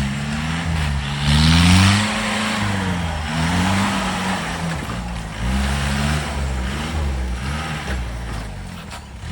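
Off-road 4x4 vehicle's engine revving up and down over and over, with two louder rushing surges about a second and three seconds in.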